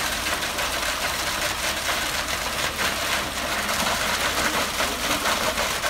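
Steady mechanical noise of a running engine, with a dense hiss over a low rumble.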